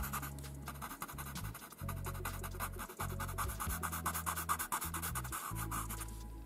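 Soft background music with a steady bass line, over quick, light scratchy strokes of a paper blending stump rubbing pastel pigment into Pastelmat paper.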